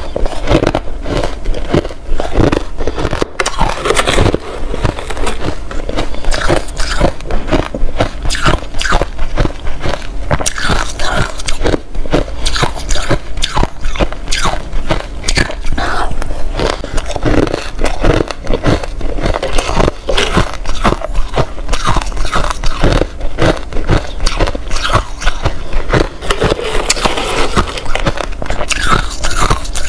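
Hard crushed ice bitten and chewed close to the microphone: a rapid, unbroken run of crisp crunches.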